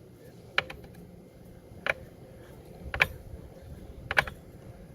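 Four sharp metal clicks about a second apart from a hand wrench on the brake caliper's mounting bolts as they are tightened down.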